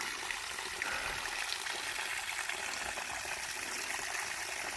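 Small mountain stream trickling and splashing steadily over rocks.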